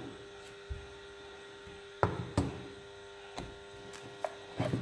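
Several light knocks and taps of a smartphone and its cardboard box being handled on a table, the sharpest about two seconds in, over a steady faint hum.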